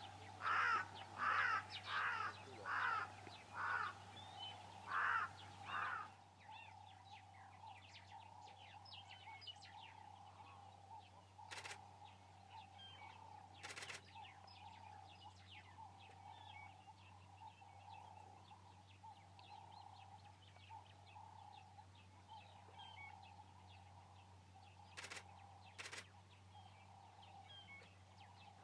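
A run of about seven short, harsh animal calls, each roughly 0.7 s after the last, stopping about six seconds in. After that come faint bird chirps and a few sharp clicks.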